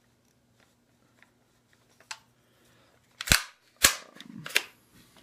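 Sharp mechanical clacks from an Elite Force M4 CQB airsoft rifle's parts being worked by hand: a faint click about two seconds in, then three loud clacks about half a second apart.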